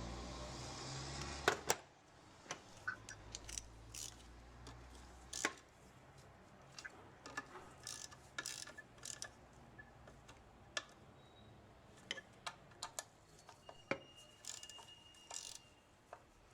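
Hand tools and metal transmission parts clicking and ticking in scattered, irregular taps during reassembly of a CVT's secondary pulley. A steady whirring noise with a low hum cuts off with a sharp click about one and a half seconds in.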